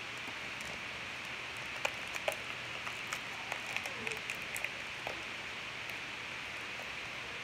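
Faint, scattered sticky clicks and squishes of slime being worked by hand, over a steady background hiss.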